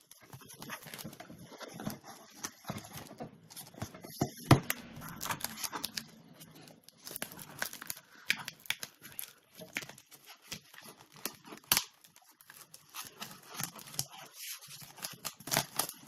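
Delivery packaging being handled and torn open: irregular crinkling and rustling with scattered clicks, and one sharp snap about four and a half seconds in.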